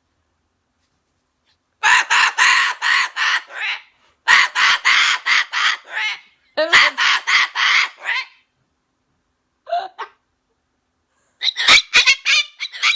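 Umbrella cockatoo screaming: loud bouts of rapid, repeated harsh screeches, four long bouts and one brief one, starting about two seconds in. It is an excited fit that the owner puts down to a sip of cherry soda.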